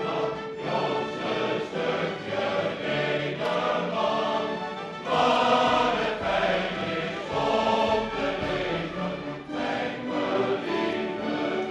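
A large gathering singing together in chorus with an orchestra accompanying, in long held notes; the singing grows louder about five seconds in.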